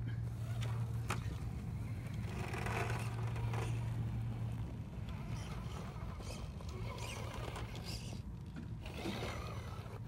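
Electric RC rock crawler, an Axial SCX10 II Deadbolt, climbing rock: its motor and drivetrain give a steady low hum through the first half, with its tyres scraping and scrabbling on the granite.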